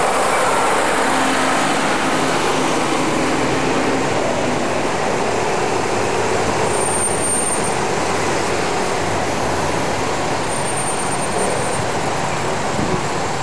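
A large farm tractor's diesel engine passes close by, its low steady drone fading over the first few seconds, followed by a car driving past on the street.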